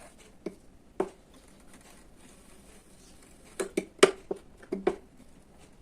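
Sharp taps and clicks of a soldering iron against the cracked plastic body of a vacuum cleaner as the crack is melted shut. Two single clicks come in the first second, then a quick cluster of about six around four seconds in.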